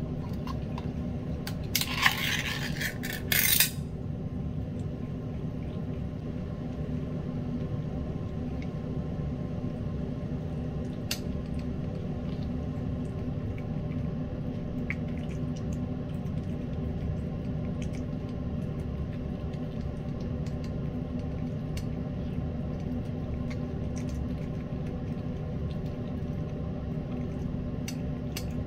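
Pull-tab lid of a metal can of wet cat food being peeled open about two seconds in: a couple of seconds of sharp metal scraping and popping. After that a cat eats the wet food from the can, heard as faint scattered clicks over a steady low hum.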